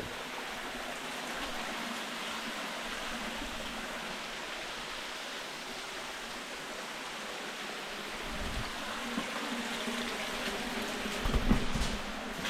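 Steady rushing of a waterfall, an even hiss of falling water. A few dull low thumps come near the end.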